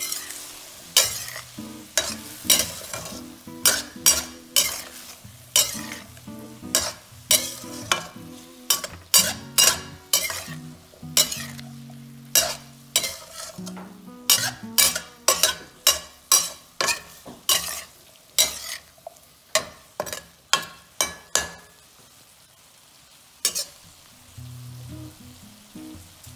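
Metal slotted spatula scraping and turning shrimp and vegetables in a sizzling stainless steel frying pan, a sharp scrape about twice a second. The stirring stops about 21 seconds in, apart from one more stroke, and the frying sizzle goes on.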